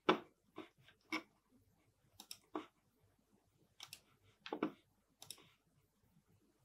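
Computer mouse clicking: about eight faint, short single clicks at irregular intervals.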